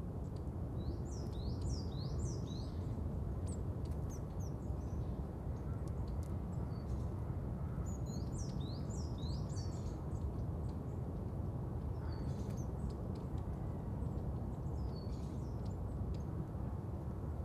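Small birds chirping in quick runs of high, short calls that come and go several times, over a steady low rumble of outdoor background noise.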